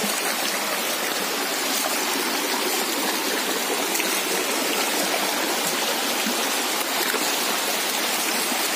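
Shallow rocky stream rushing over stones, a steady, even wash of water noise.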